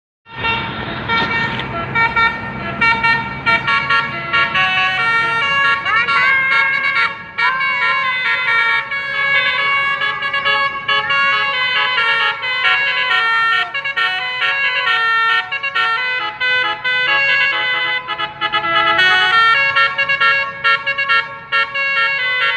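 A bus basuri (telolet) multi-tone air horn playing a tune: a quick run of held horn notes, stepping from one pitch to the next, with a few sliding notes about six seconds in.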